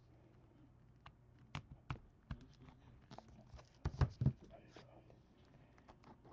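Scattered clicks and taps of hands handling and prying open a small, taped black box of trading cards, with a cluster of louder knocks about four seconds in.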